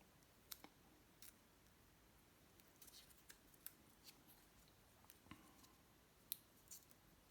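Faint, scattered small clicks and crinkles of protective paper backing being peeled off a sticky rubber pad by hand, with near silence between them.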